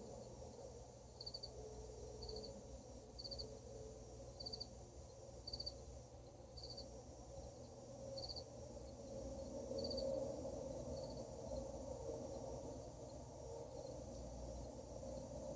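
A cricket chirping regularly, about once a second, each chirp a quick run of pulses, over a faint low wavering hum: the unexplained night-time noise being recorded.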